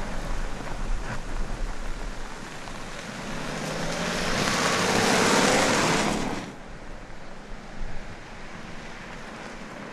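A 2018 BMW X3 SUV rolling close past on a sandy dirt track: tyres crunching over sand and grit over a low engine note. It builds over a few seconds, is loudest as the wheels pass, and cuts off suddenly about six and a half seconds in, leaving a fainter rolling noise.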